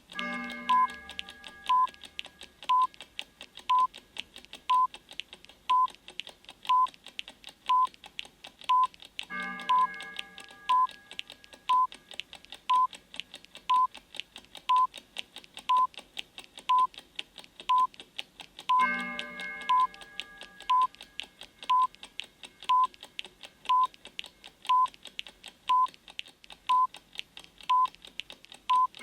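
Countdown timer sound effect: a short electronic beep once a second over fast, steady clock-like ticking. A bell-like chime sounds three times, about every nine and a half seconds.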